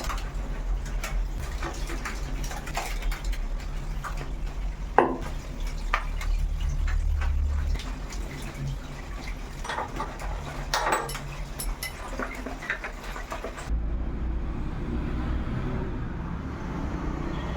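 Scattered clinks and knocks of metal parts and tools being handled, with one sharp knock about five seconds in. Near the end it cuts to a steady low rushing noise.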